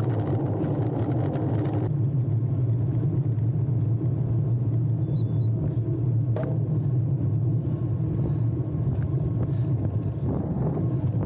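Steady wind rush on the microphone of a bicycle-mounted camera while riding, with the low rumble of tyres on the road.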